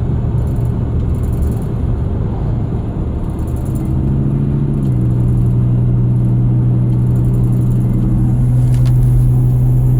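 2001 Ford Excursion running with a steady low tone over its rumble, the whine whose source the owner is trying to find. About halfway through, the tone shifts and gets stronger, then holds steady.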